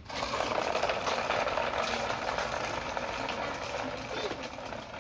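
Plastic toy dump truck pulled on a string, its hard plastic wheels rolling over concrete paving stones: a steady grinding noise that grows gradually fainter as it is dragged away.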